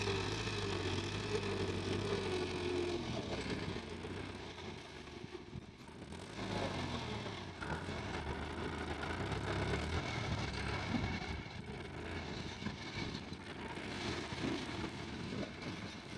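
Tractor engine running under load as it pulls a plough, a steady low drone that dips about five seconds in and picks up again.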